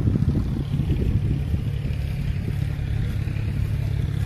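A steady low drone like an engine running, with uneven low rumbling underneath.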